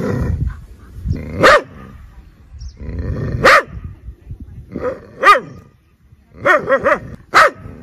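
Dog barking at a cobra, a warning at the snake: single sharp barks about every two seconds, then a quick run of four barks near the end.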